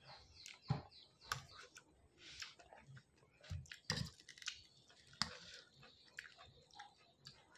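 A person chewing and slurping Maggi instant noodles close to the microphone: irregular wet mouth smacks and clicks, with a fork working the noodles on a steel plate.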